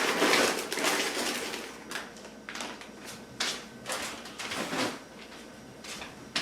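Frozen chicken being dumped from its bag into a crock pot: a rustle and slide in the first second, then a series of separate clunks and knocks as pieces and the pot are handled.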